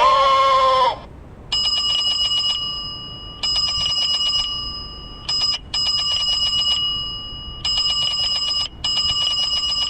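Small car-mounted novelty speaker playing its ringtone sound modes. For about the first second it plays an animal-call effect with bending pitch. It then switches to a rapidly struck, bicycle-bell-like ring, repeated in bursts of about a second each with short gaps between them.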